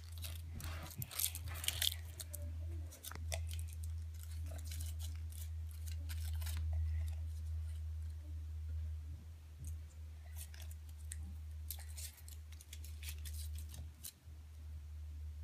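Foil wrapper of a Kinder Surprise chocolate egg being torn and crinkled open, with crackles and clicks as the egg is handled, busiest in the first two seconds and then sparse. A steady low hum runs underneath.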